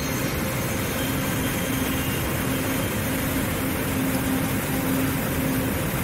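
Twin-stream waterfall about 7 m high, running full after rain, pouring into a rocky plunge pool: a steady rush of falling water.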